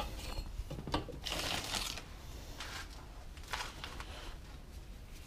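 Rustling, scraping and light clatter of tools being handled as a pair of long-handled pruners is pulled free from among leaning garden tools, in several short irregular bursts.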